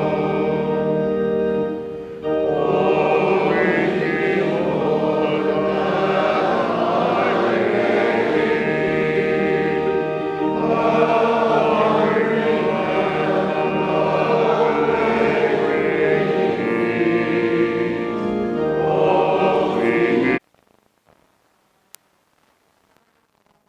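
Congregation singing a hymn in held, sustained notes. It cuts off abruptly about 20 seconds in, leaving near silence.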